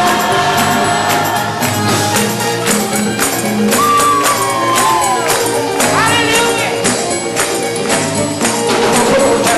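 Live gospel music: sustained chords over dense, rapid percussion, and one voice sliding through a few high notes about four to six seconds in.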